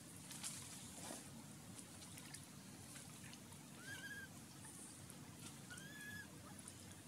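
Infant macaque giving two short, faint rising-and-falling cries, about four and six seconds in, as it is dragged by its tail through shallow water, over a low hiss and faint water sounds.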